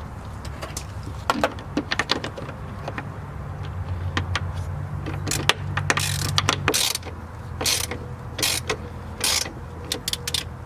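Plastic cable ties being pulled tight: a run of ratcheting clicks and short rasping pulls, over a low steady hum.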